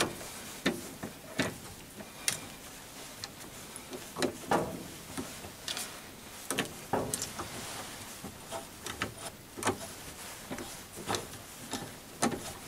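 Irregular light metallic clicks and knocks from hand-tapping a 6mm thread on a lathe, as the chuck, tap wrench and tailstock are turned and handled by hand with the motor off.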